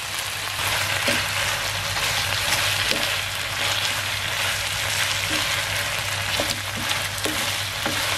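Chicken pieces sizzling in a hot oiled frying pan, getting louder about a second in, while a wooden spatula stirs them with occasional light scrapes and taps against the pan.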